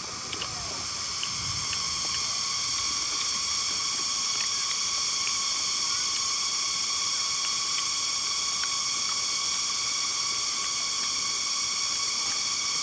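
Steady high-pitched drone of insects, several at different pitches together, swelling slightly over the first couple of seconds and then holding. A few faint clicks sound over it.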